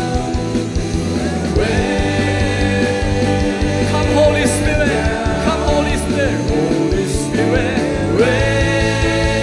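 Female and male vocalists singing a slow contemporary worship song over a live band with bass guitar and drums.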